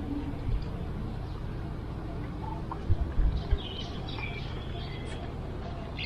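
Outdoor ambience: a steady low rumble, with a few low thumps about three seconds in and small birds chirping in the second half.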